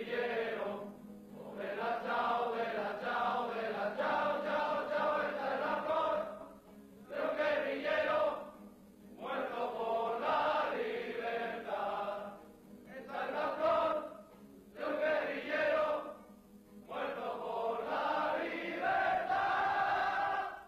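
A group of men singing a song together in unison to a strummed Spanish guitar, in phrases of two to four seconds with short breaks between them.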